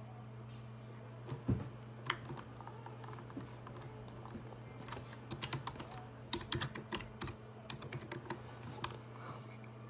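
Irregular light clicks and taps, coming thicker around the middle, over a steady low hum.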